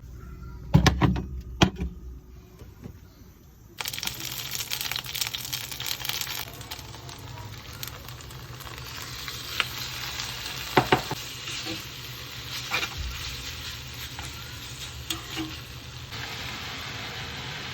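Food frying in a hot pan: a few knocks, then about four seconds in a loud sizzle starts suddenly and carries on, with scattered clicks of a utensil stirring the pan.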